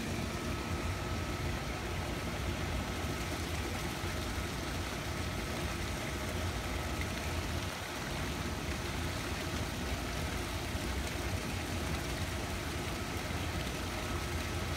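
Steady low rumble with a faint constant hum from a backyard pool's waterfall spout pouring into the water and the pump that drives it. There is no splash or change in the sound.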